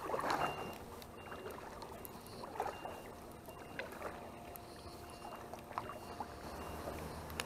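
Canoe paddle strokes: the blade dips and pulls through the water with soft splashes, one stroke every second or two.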